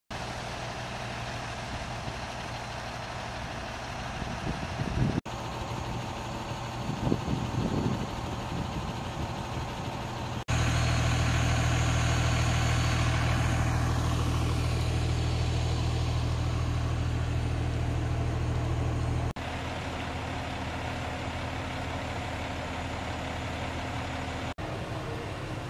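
Fire engines idling with a steady low diesel engine drone, loudest in the middle stretch, cutting abruptly to different recordings several times. A few brief knocks fall about five to eight seconds in.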